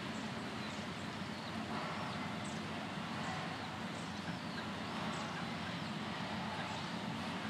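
Steady outdoor background noise with faint, high bird chirps repeating about once or twice a second.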